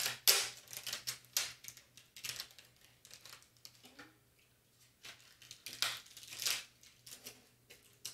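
Plastic transfer tape and vinyl decal sheets crinkling and rustling as they are handled. The sound comes in short spells, loudest just after the start and again about six seconds in, with a quiet lull in between.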